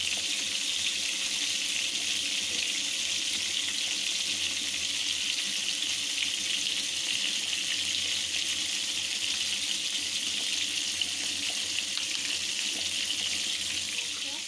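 Fish steaks frying in hot oil in a pan: a steady sizzling hiss with faint crackle.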